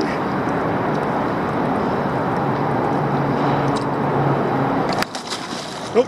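Steady rushing outdoor noise with a faint low hum, cutting off abruptly about five seconds in.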